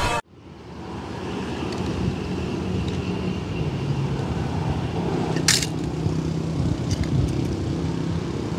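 Film music cuts off abruptly, then a steady low outdoor rumble, like distant traffic, fades in. A single sharp click comes about five and a half seconds in, with a few faint ticks after it.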